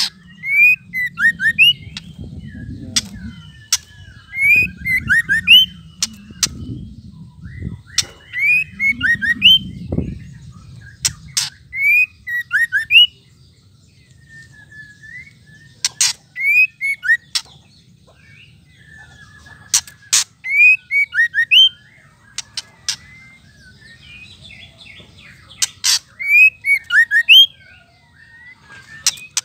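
Female white-rumped shama giving its 'ketrekan' call: bursts of sharp, dry clicks mixed with short falling whistled notes, repeated every few seconds.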